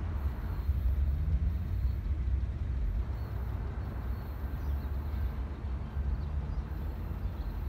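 Uneven low rumble of wind on the microphone, with a Metro Gold Line light-rail train running faintly in the distance as it moves away.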